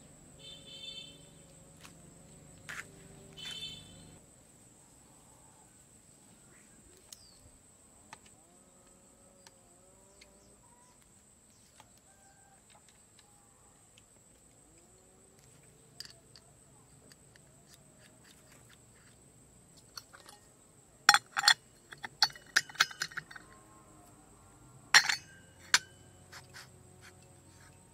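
Metal parts clinking and tapping as a pulley and fan are handled and fitted onto a car alternator's shaft: a quick cluster of sharp clicks about three-quarters of the way through, then one more a few seconds later. The rest is faint.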